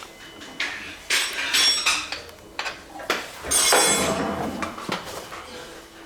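Metal tools and parts clanking and clinking as they are handled, in a run of sharp knocks with a brief metallic ring, the loudest around the middle.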